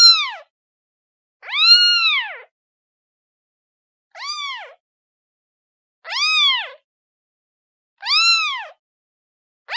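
A kitten meowing again and again, one high meow about every two seconds, each rising and then falling in pitch.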